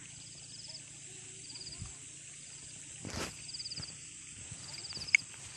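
Insects chirping in a rice paddy: short, high, pulsed trills repeating about once a second over a steady high hum. A brief rush of noise comes about three seconds in, and a sharp click near the end.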